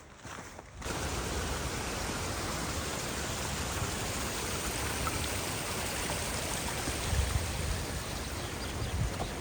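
Steady rushing of a mountain stream or river, cutting in suddenly about a second in after a quieter start.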